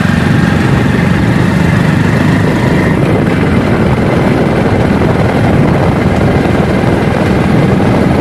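Motorcycle running at steady riding speed, with heavy wind buffeting on the microphone.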